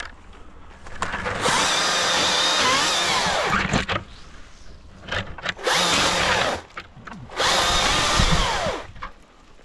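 Husqvarna 542i XP battery chainsaw run up three times in long bursts, its chain and motor whine sagging in pitch under load as it cuts through spruce branches.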